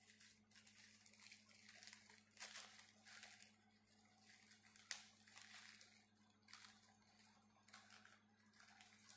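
Faint crinkling and rustling of a plastic courier mailer bag as it is crumpled and torn open by hand, with a sharp click about five seconds in.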